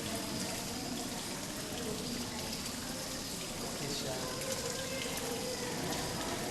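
Indistinct chatter of people in the background over a steady rushing hiss.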